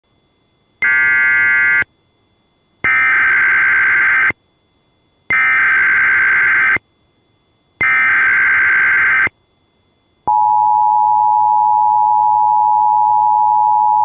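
Emergency Alert System (EAS) alert tones: four loud stretches of rasping digital SAME header data, each one to one and a half seconds long with short gaps of quiet between. About ten seconds in, the steady two-tone EAS attention signal (853 and 960 Hz) begins and holds.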